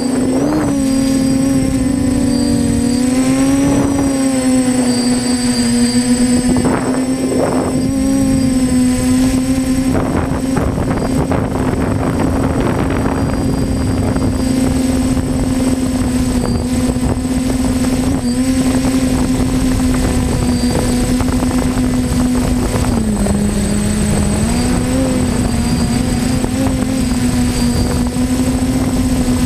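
TBS Discovery Pro quadcopter's electric motors and propellers humming steadily, as picked up by its onboard GoPro camera. The pitch dips briefly about three-quarters of the way through, then comes back up.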